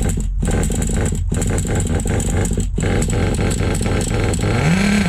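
HPI Savage nitro RC truck's small two-stroke glow engine running on the throttle, dropping out briefly three times in the first three seconds, then revving up and back down near the end.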